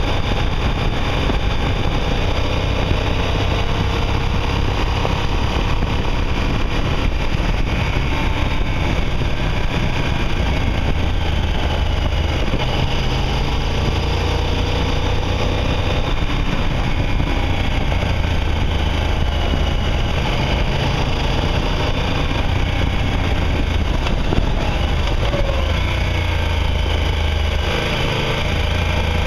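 Motorcycle engine running at road speed under a steady rumble of wind on the microphone, its pitch rising and falling with the throttle through the curves.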